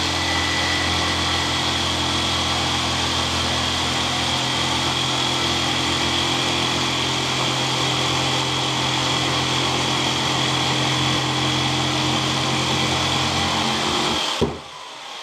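Corded jigsaw running steadily as it cuts through a thick plastic water-main pipe, then stopping suddenly near the end with a click.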